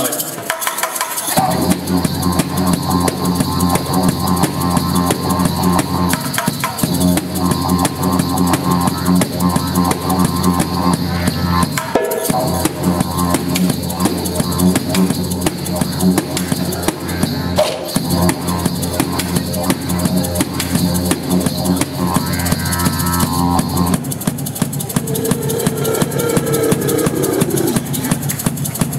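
Didgeridoo playing a steady low drone, broken by short pauses for breath every five to six seconds, over a steady, driving percussion beat. The drone comes in about a second in and changes its tone near the end.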